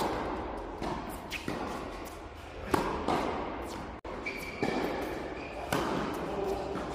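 Tennis balls struck by rackets and bouncing on an indoor court, about six hits and bounces at irregular intervals, each knock echoing in the hall. A high squeak holds for a second or so about halfway through.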